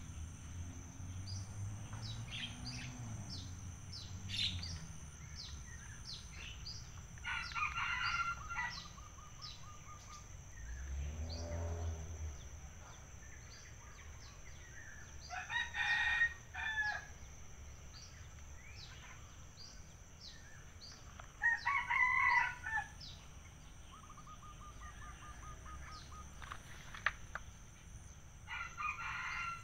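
A rooster crowing four times, about every six to seven seconds, over a steady high insect drone. There is a brief low rumble near the middle.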